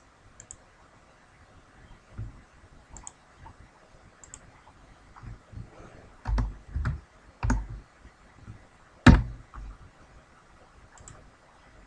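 Computer keyboard keystrokes and mouse clicks, sparse and irregular, with a few louder taps in the second half.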